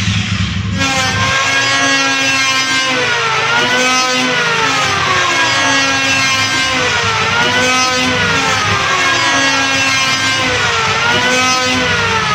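Electric hand planer motor running loud, its whine falling slowly in pitch and then rising back quickly, over and over about every three and a half to four seconds.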